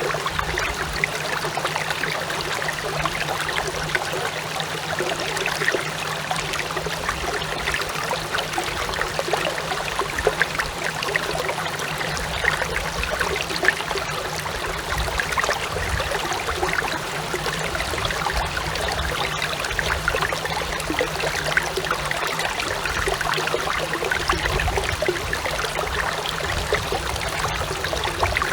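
Clear stream babbling steadily, a dense run of small splashes and trickles, with a steady low hum underneath that the uploader notices as noise from the cheap plug-in smartphone microphone.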